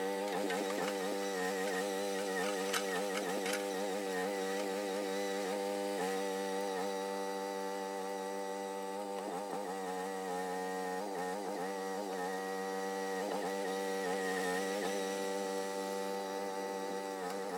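Groundhog mini excavator's small engine running steadily, its pitch wavering up and down as the hydraulics take and release load during digging and grading.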